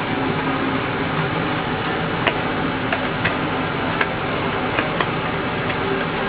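Light clicks and taps of fingers handling the metal basket of a JBL woofer stripped of its foam surround, scattered through the second half, over a steady background hum.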